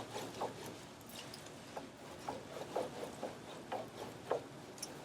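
An onion rubbed back and forth over a grill grate to clean it: a run of soft, irregular scrapes and ticks.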